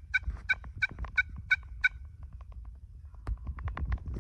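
Turkey calling: a run of evenly spaced yelping notes, about three a second, that ends about two seconds in, followed by a few scattered sharp clicks.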